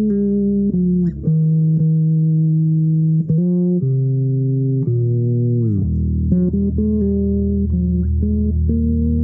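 Improvised melody on a plucked string instrument: a run of held notes, one sliding down in pitch about five and a half seconds in, followed by shorter notes.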